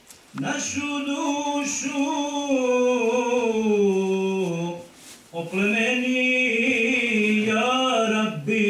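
One unaccompanied male voice chanting an Islamic devotional recitation in long, melismatic phrases, its pitch wavering and bending on held notes, with a short breath break about five seconds in.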